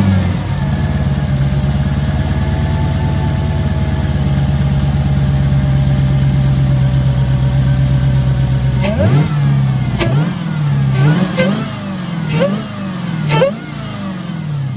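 Dodge Hellcat's supercharged 6.2-litre Hemi V8, fitted with a JLT cold-air intake, idling high and steady just after its first start-up. About nine seconds in it is blipped through about five quick revs, each rising and dropping back.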